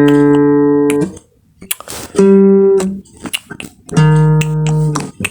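Guitar music: three chords, each struck and held for about a second, with short breaks between them.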